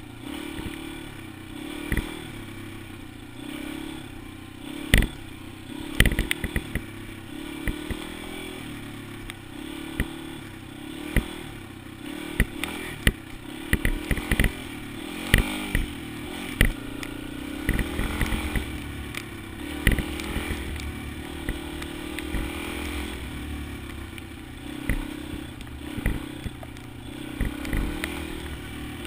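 Yamaha XT250 single-cylinder four-stroke engine running while riding, its note rising and falling with the throttle, with frequent sharp clicks and knocks on top.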